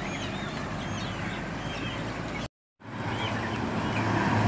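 Steady low hum of an idling vehicle engine, with repeated short high chirps over it. The sound cuts out completely for a moment about two and a half seconds in.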